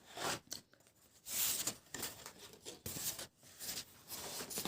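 Sheets of paper rustling and sliding in several short bursts as they are handled.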